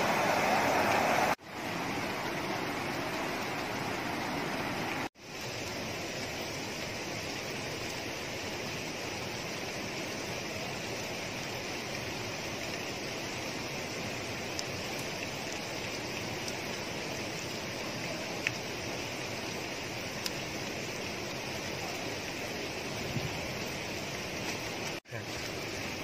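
Steady rushing of fast-flowing water, louder in the first second and then a lower, even rush after a cut, with a few faint clicks.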